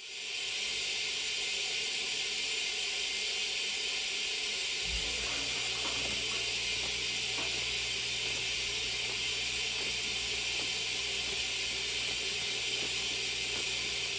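High-pressure cutting coolant spraying out through the oil holes of through-coolant reamers in a machining centre: a steady hiss, with a low hum joining about five seconds in.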